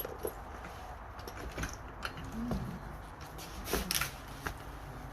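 Bicycle parts being handled and fitted during assembly: scattered light clicks and knocks, with a few louder knocks around the middle and near the end.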